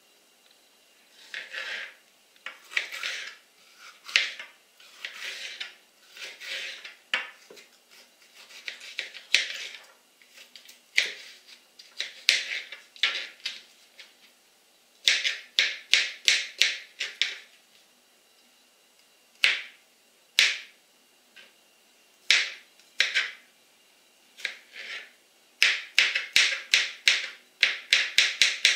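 Kitchen knife cutting peeled cucumber on a plastic cutting board: irregular bouts of blade knocks and short slicing strokes, quickening into fast chopping runs of about five cuts a second near the end as the cucumber is diced.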